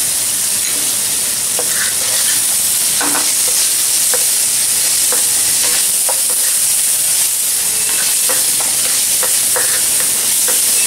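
Shredded chicken, onion and tomato sizzling in oil in a non-stick pan, with a steady high hiss. A wooden spatula stirs through it, scraping and tapping on the pan in short, irregular strokes.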